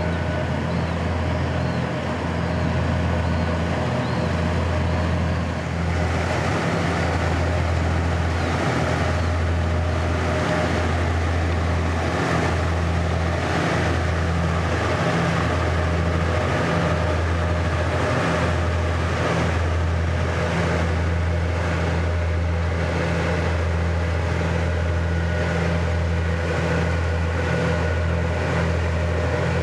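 Small harbour tug's diesel engine running with a steady low drone while it drags a mud harrow along the riverbed. A rushing hiss rises over it about six seconds in.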